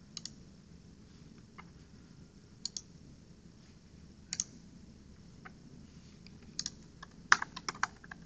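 Computer keyboard keys and mouse buttons clicking now and then, with a quick run of keystrokes near the end.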